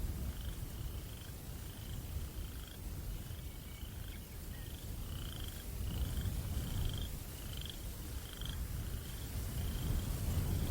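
Low wind rumble from a night breeze, with a calling night creature repeating a short rising chirp a little more than once a second.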